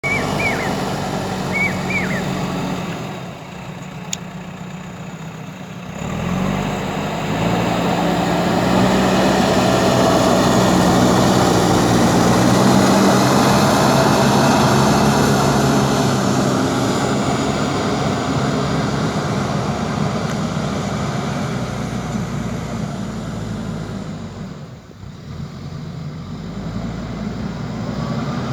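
Diesel engine of a JCB backhoe loader running as the machine works soil. The engine drops back for a few seconds about three seconds in, climbs to higher revs around six to eight seconds, and dips again briefly near twenty-five seconds.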